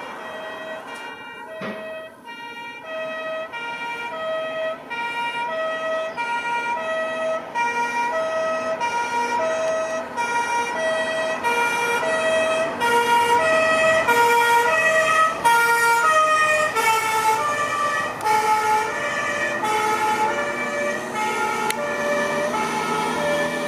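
Two-tone German emergency siren (Martinshorn) on a fire-service equipment truck, alternating high and low notes steadily. It grows louder as the truck approaches, and after about two-thirds of the way through the pitch of both notes drops as the truck passes and moves away. A single sharp knock about two seconds in.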